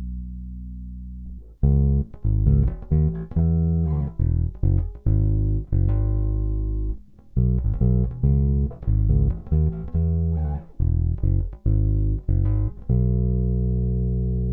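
Glarry budget electric bass guitar playing a pickup tone demo. A low note is held, then a riff of short plucked notes follows, ending on a long note left to ring. The demo compares the stock pickups with replacement old Squier P-bass pickups.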